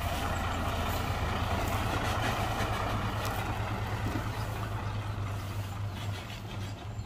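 Dump truck's diesel engine running with a steady low drone, easing slightly near the end.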